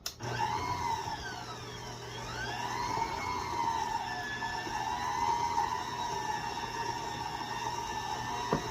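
Stand mixer with a paddle attachment switched on and running, mixing stiff cheese-cracker dough. Its motor whine swoops down and back up in pitch over the first few seconds, then holds steady over a low hum, with a click near the end.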